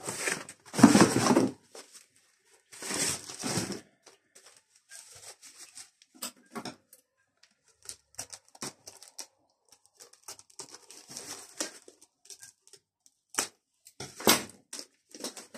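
Rustling and crinkling of foam packing wrap and plastic packaging being handled: three louder swishes in the first four seconds, the loudest about a second in, then many small scattered crackles.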